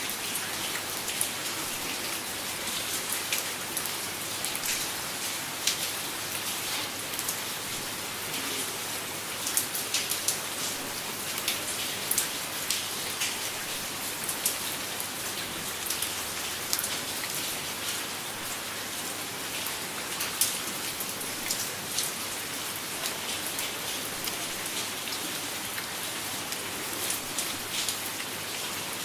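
Light rain falling steadily as a continuous hiss, with many individual drops pattering sharply and irregularly on a surface.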